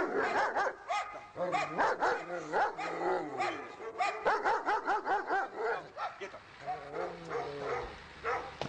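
A dog barking in a fast, excited run of about three barks a second, with brief gaps, easing off near the end; this is the dog's barking during attack (protection) training.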